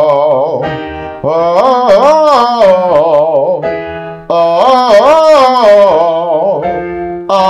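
A man singing a vocal exercise on an 'oh' vowel, in short runs of notes that go up and down, one phrase about every three seconds. He keeps the vowel narrow as the pitch rises. A keyboard holds steady chords in the short gaps between phrases.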